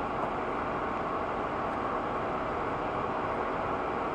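Steady wind rushing and buffeting on the microphone, an even noise with a fluttering low rumble.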